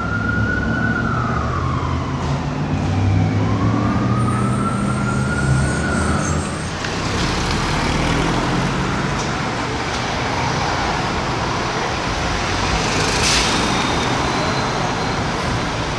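Emergency vehicle siren wailing in two slow rising-and-falling sweeps, stopping about six seconds in. Steady street traffic follows, with a car passing and a brief hiss late on.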